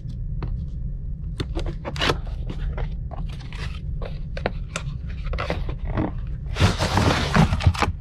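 Cardboard toy box being opened with scissors: scattered snips, clicks and scrapes of handling, then, about a second before the end, a louder scraping rush of cardboard sliding against cardboard as the inner box is pulled free.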